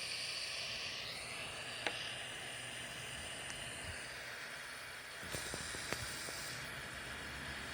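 Butane torch soldering iron hissing steadily while it heats solder-seal heat-shrink wire connectors, with a few light clicks.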